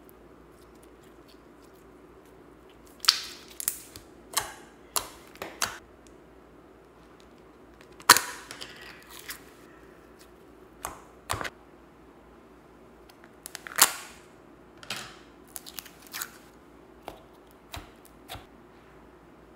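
Slime being squeezed, stretched and poked by hand, giving irregular sharp wet pops and clicks, singly and in small clusters, after a quiet first few seconds.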